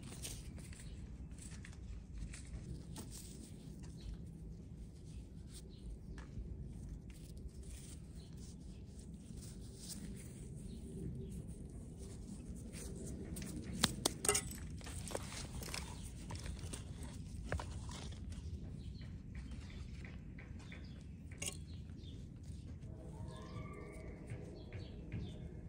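Low, steady outdoor background rumble with scattered soft rustles and clicks, a sharper cluster of clicks about 14 seconds in, and a short pitched call with a few overtones near the end.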